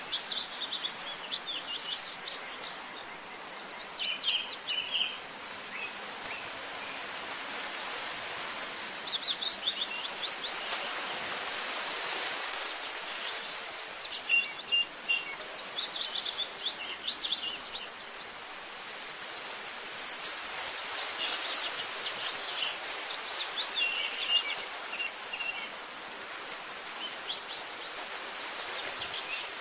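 Small birds chirping in short bursts every few seconds over a steady outdoor hiss of ambient noise.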